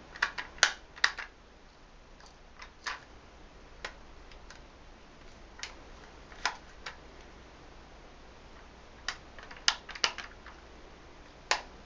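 Scattered light clicks and taps from handling a 3-in-1 hair crimping tool as its parts are pressed and fitted. There are several in quick succession at the start, then single clicks spaced out, and another cluster near the end.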